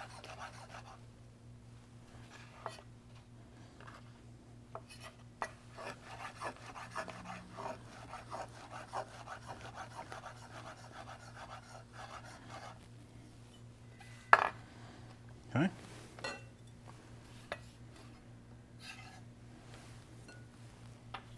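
Chef's knife dicing portobello mushrooms on a wooden cutting board: a run of quick, light taps, with a few louder knocks about two-thirds of the way through.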